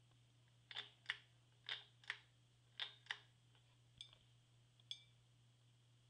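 Ceiling fan with a glass-shaded light kit running with a faint steady low hum and a series of light ticks, mostly in pairs about a second apart, ending with two single ticks.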